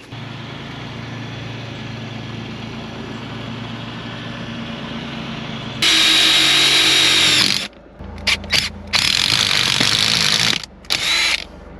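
Car engine idling steadily for about six seconds, then a power tool run in bursts: one long run with a steady high whine, followed by several shorter stop-start runs.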